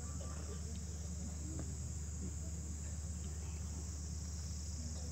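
Steady outdoor background: a constant high-pitched hiss over a low hum, with faint distant voices.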